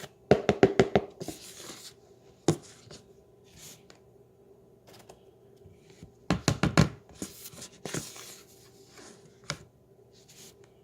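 Intermittent handling noises: quick clusters of clicks and crinkly rustling from packaging of tapioca starch being handled, with the busiest bursts right at the start and about six seconds in.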